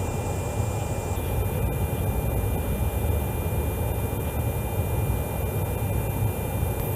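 Steady drone of a military aircraft's engine heard inside the cockpit, a low noise with a faint steady high whine over it.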